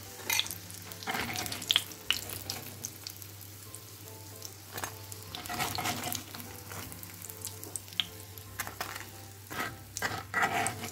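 Breadcrumb-coated tuna cutlets shallow-frying in hot oil in a non-stick pan, sizzling with fine crackles. Several brief clatters and scrapes of a metal spoon against the pan come through it as the cutlets are lifted out.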